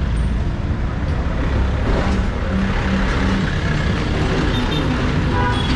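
Street traffic: motor vehicle engines running close by, with a steady low rumble.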